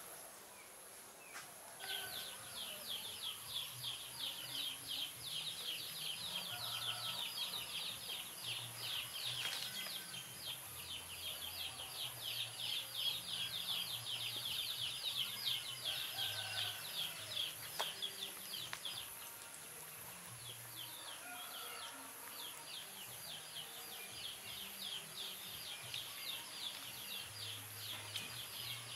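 Outdoor wildlife chirring: a high, rapid, even pulsing call that starts about two seconds in, breaks off for a couple of seconds past the middle, then carries on.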